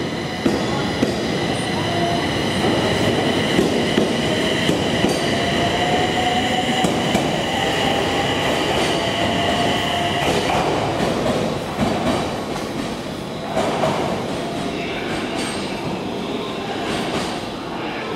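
SAT721 series electric train pulling away from the platform, its motor whine rising slowly in pitch as it gathers speed, over the rumble and clacking of wheels on rails. About ten seconds in this gives way to the running sound of another train in the station.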